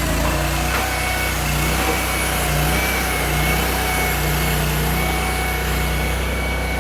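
Engine of a self-propelled pile-driving machine running steadily, with a faint high steady whine over the drone.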